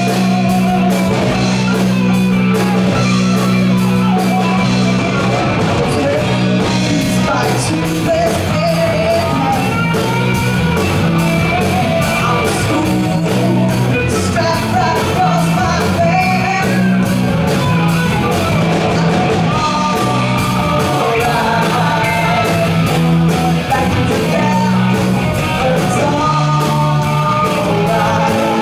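Live rock band playing: electric guitars, bass guitar and a drum kit keeping a steady beat, with a singer.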